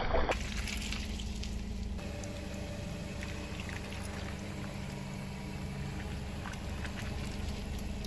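Spilled water beads (orbeez) squishing and trickling wetly under and around a car tyre, with scattered faint ticks and a low steady hum underneath.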